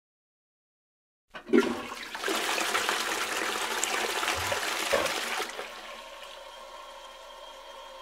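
Roca ceramic toilet cistern flushed with its chrome lid knob: a sudden start about a second and a half in, then water rushing loudly into the bowl for about four seconds. It then drops to a quieter steady hiss with a faint steady whine as the cistern refills.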